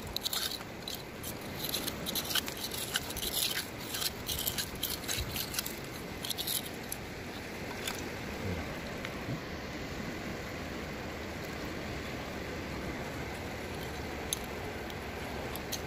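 Quick clicks and scrapes of shells and gravel being dug through by hand for sihi shellfish, thick for the first several seconds, then giving way to a steady wash of wind and surf.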